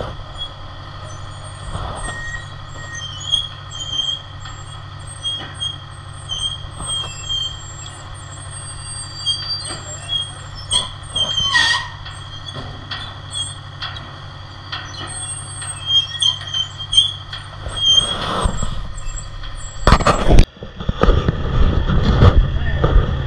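Construction machinery running: a steady low engine drone with frequent short high squeaks and scattered knocks. About twenty seconds in, after a loud burst, a louder, lower engine rumble takes over.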